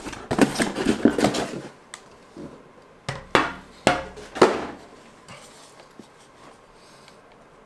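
Rustling and clattering of a toy gel ball blaster being handled out of its packing box, then three sharp knocks about half a second apart as it is set down on a glass tabletop, with a few faint clicks after.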